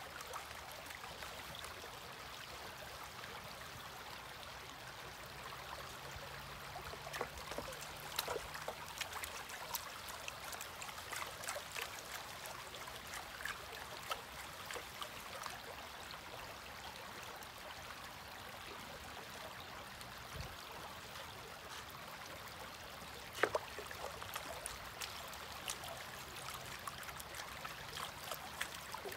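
Shallow creek water running steadily, with light splashes and sloshing from a plastic gold pan being shaken and dipped at the surface to settle the heavy black-sand concentrate to the bottom.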